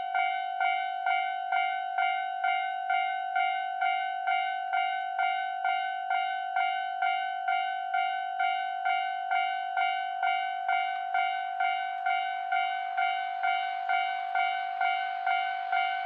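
Railway level-crossing warning bell ringing, an electronic ding repeating evenly about twice a second. Near the end the rising rush of an approaching train joins it.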